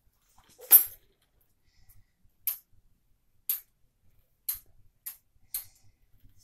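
Short, sharp clicks and squirts from small plastic food-colouring dropper bottles being squeezed over glue, about one a second, the first the loudest.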